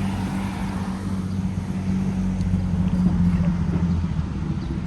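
A vehicle engine's low, steady drone that grows louder about three seconds in, then eases off near the end.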